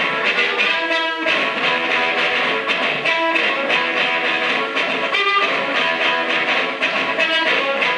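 Live blues band playing an instrumental, led by an amplified blues harmonica cupped against a handheld microphone, playing quick runs of notes over a steady drumbeat.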